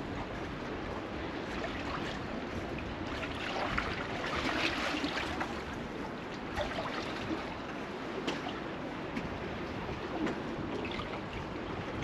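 Small waves lapping and washing against jetty pilings: a steady rush that swells and eases, loudest about four to five seconds in, with a few short sharper splashes.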